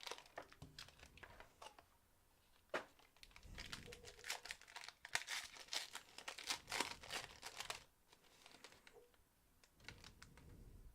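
Packaging crinkling and tearing as a trading-card box and its pack are opened: a faint run of crackling that is busiest in the middle, with one sharp click about three seconds in.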